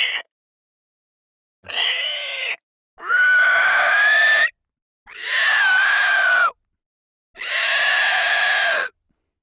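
Monster screech sound effects: four screaming cries, each lasting one to one and a half seconds, separated by dead silence. The first is shorter and quieter, and the tail of an earlier cry ends right at the start.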